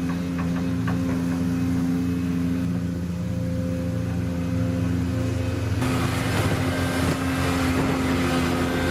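1953 Caterpillar D8 bulldozer engine running steadily after startup, turning rougher and louder from about six seconds in.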